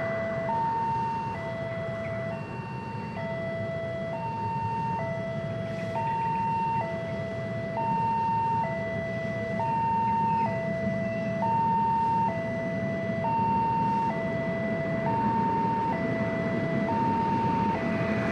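Railway level-crossing warning alarm sounding steadily, switching between a low and a higher tone about once a second, which signals that a train is coming and the barrier is down. Road traffic rumbles underneath.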